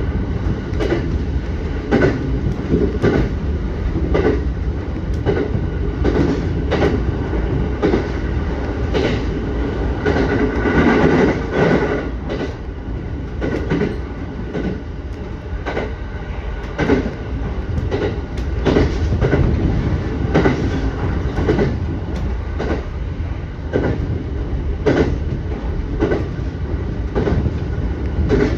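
Electric passenger train running along the line: a steady rumble, with the wheels clicking over rail joints every half second to a second. A brief louder swell with a higher ringing tone comes about ten seconds in.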